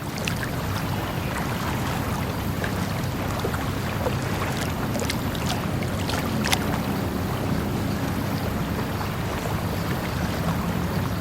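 Water flowing steadily with an even rushing sound, with a few sharp ticks or splashes over it, the loudest about six and a half seconds in.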